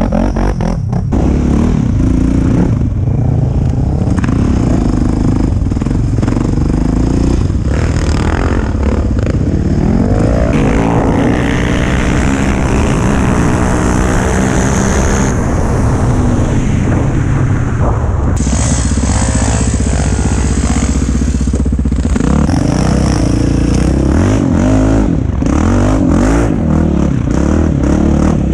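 Sport quad engines revving hard as the quads ride and race, the engine pitch climbing and dropping again and again with throttle and gear changes.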